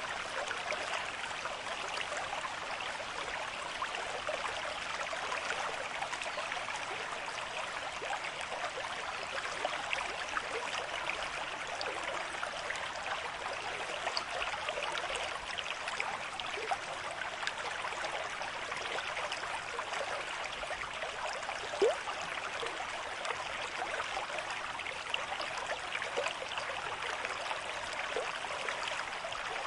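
River stream at moderate flow: a steady rush of running water with fine gurgles, and one brief louder gurgle about two-thirds of the way through.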